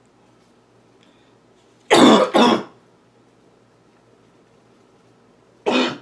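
A girl's loud barking cough: two harsh coughs in quick succession about two seconds in, then a single cough near the end.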